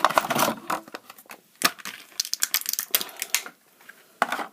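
Packaging of a small plastic fidget toy being opened and handled: an uneven run of sharp clicks, taps and crinkles that thins out near the end.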